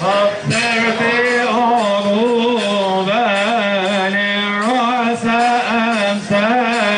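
A man singing a long melismatic line of a Coptic hymn of praise to the Virgin Mary, one sustained voice with ornamented wavering turns and short breaks for breath.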